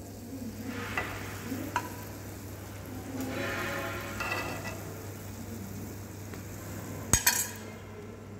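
Low sizzling of hot orange-caramel crêpe Suzette sauce and metal utensils working against the pan as the sauce is spooned over a crêpe, with one sharp knock a little past seven seconds in.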